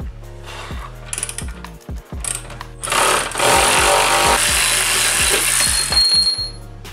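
A few clicks from a wrench on a rear camber arm bolt, then about three seconds in a power tool runs loudly for some three and a half seconds, loosening the bolt. Background music with a steady beat plays under it.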